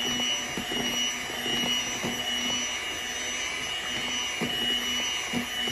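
Electric hand mixer running steadily, its beaters whirring through a thick avocado and cream mixture in a plastic tub, with a few light knocks as the beaters touch the tub.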